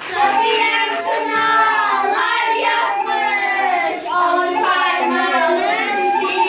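A small group of young girls singing a song together, accompanied by a man playing a small end-blown flute.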